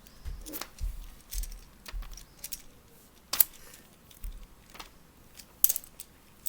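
Small fidget toys clicking and clattering as they are handled and set down, in scattered sharp taps. The loudest click comes a little past the middle, with another near the end.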